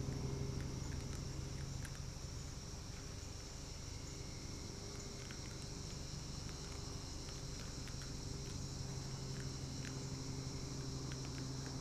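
Steady high-pitched chorus of crickets or other night insects over a low steady hum, with faint scattered clicks and scratches.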